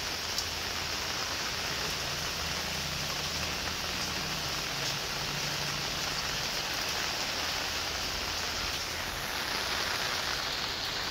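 Steady rain falling onto the water of a brimming stone-lined well and its wet tiled surround, an even hiss with faint scattered drop ticks, getting a little louder near the end.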